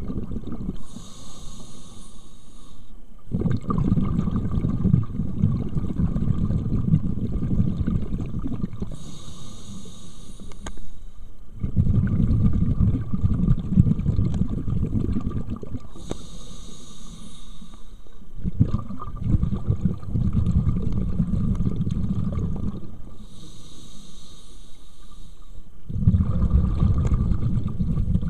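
Scuba diver breathing through a regulator underwater: a hiss of about two seconds on each inhale, then a longer low bubbling rumble as the exhaled air leaves the exhaust valve. Four breaths in a steady rhythm.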